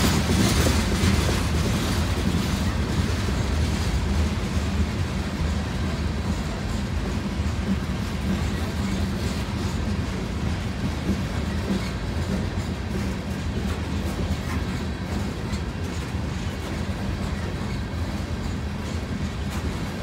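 Loaded stone hopper cars of a freight train rolling past: a steady low rumble of steel wheels on rail, with the wheels clicking over rail joints now and then.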